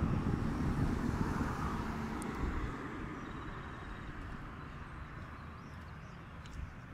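Outdoor street ambience of road traffic, a steady rush that is loudest in the first couple of seconds and slowly fades, with a few faint ticks.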